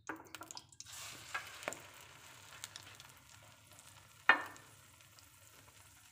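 An egg-soaked bread slice frying in hot butter and oil in a pan, with a steady sizzle that starts about a second in and slowly settles. A single sharp knock about four seconds in.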